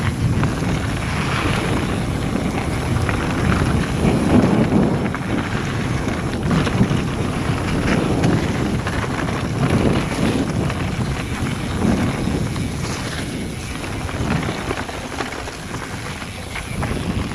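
Wind rushing over an action camera's microphone on a fast mountain-bike descent of a dirt trail, with tyre noise and irregular knocks from the bike jolting over bumps.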